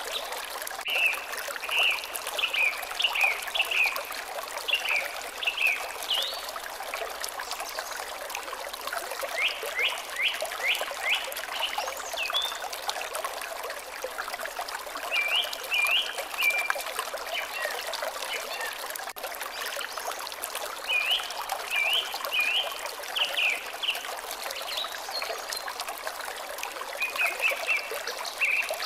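Water trickling steadily, with a bird singing short phrases of quick, high chirps that recur every few seconds.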